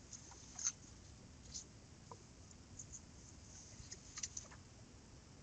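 Quiet room tone with a few faint, short clicks, including a small cluster of them about four seconds in.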